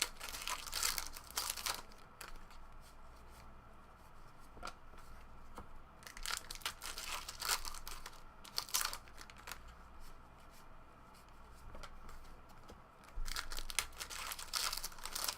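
Trading card pack wrappers being torn open and crinkled, in three bouts of ripping and crackling: at the start, again at about six seconds, and once more near the end.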